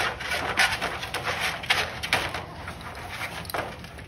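Young bulldog puppies squirming against each other in their bedding: an irregular run of short rustles and scuffs.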